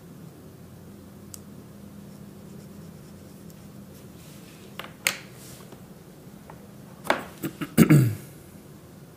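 Small clicks and knocks from objects being handled on a desk, over a steady low room hum. There is one faint click early, a sharper pair about five seconds in, and the loudest cluster of clicks and a knock about seven to eight seconds in.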